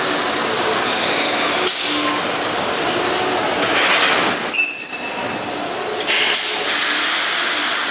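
Subway train running through the station, its wheels squealing on the rails with a high steady squeal about halfway through, and a couple of sharp clanks.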